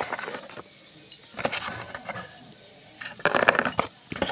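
Rings and a bracelet clinking and rattling inside a small gift box as it is handled and turned over, in several short bursts, loudest about three seconds in.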